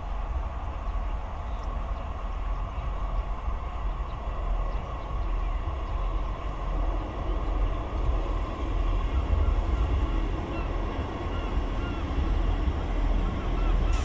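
British Rail Class 158 diesel multiple unit running in and drawing up at the platform, its underfloor diesel engine giving a steady low rumble that grows slightly louder as it nears. A series of short high chirps sounds over the second half.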